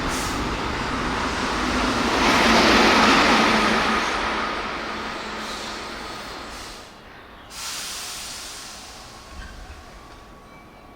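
Keihan electric train running on the track, with wheel and rail noise. It swells to its loudest about three seconds in and then fades. Near the middle it changes abruptly to a quieter train sound that keeps fading.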